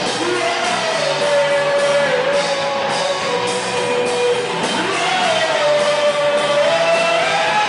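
Rock song with a sung vocal melody held in long, bending notes over electric guitar and a full band.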